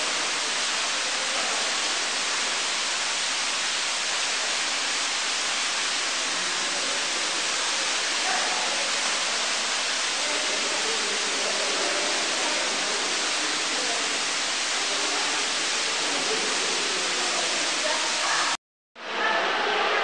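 Steady rush of the Saltaninsky underground waterfall, with people's voices faint beneath it. Near the end it cuts out abruptly for a split second before another take begins.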